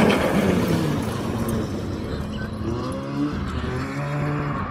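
Snowmobile engine running hard as the sled skims across open water. Its pitch falls over the first second, then climbs again and holds steady in the second half.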